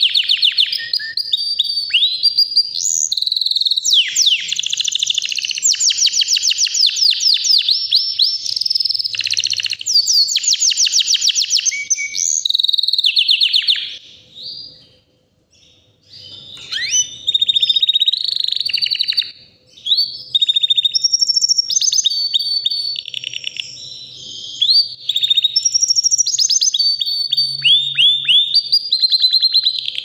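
White domestic canary singing a long song of rapid trills and whistled, gliding notes, pausing for about two seconds midway.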